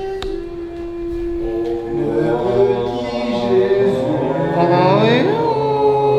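Singing in long held notes. A lower part joins about two seconds in, and near the end a note slides steeply upward.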